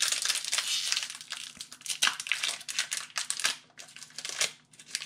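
Foil booster-pack wrappers crinkling and rustling as they are handled, in a run of irregular crackles, densest about the first second.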